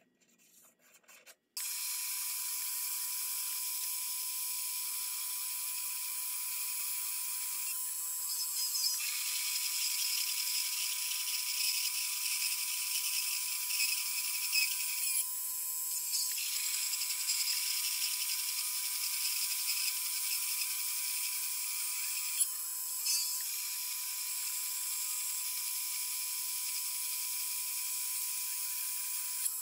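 Small bench metal lathe starting up about a second and a half in and running, its cutting tool turning a spinning metal steering tube: a steady high whine with a hissing cutting noise that dips briefly three times.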